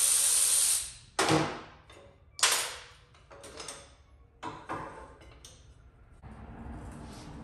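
A steady hiss, like a spray or air blast, cuts off about a second in. It is followed by a few sharp knocks and clunks of parts and tools being handled, the loudest two early on and then smaller ones.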